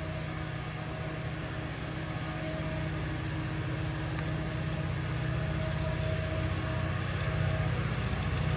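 Diesel locomotive engine running as a freight train approaches, a steady low drone growing gradually louder.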